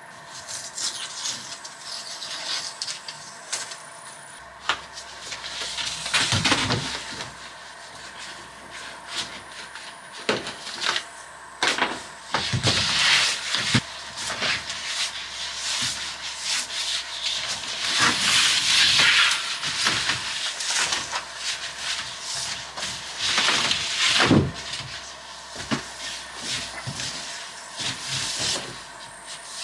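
A coil of blue insulated plastic pipe being handled and dragged, rubbing and scraping against a wooden floor frame, with scattered knocks and clicks. The scraping comes in several louder swells.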